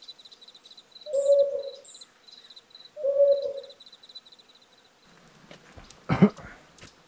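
An owl hooting twice, long single hoots about two seconds apart, over high, rapidly pulsing insect chirping at night. Near the end there is one brief loud sound.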